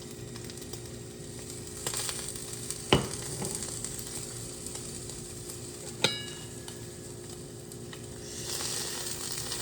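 Sausage, mushrooms and cherry tomatoes sizzling in a frying pan, with a few sharp clinks of a utensil against the pan; the last clink, about six seconds in, rings briefly. The sizzle grows louder near the end.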